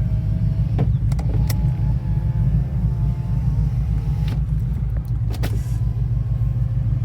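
Holden VF Commodore SSV Redline's cammed V8 idling with a steady low rumble, while an electric window motor whines for about three seconds, starting about a second in. A few short clicks.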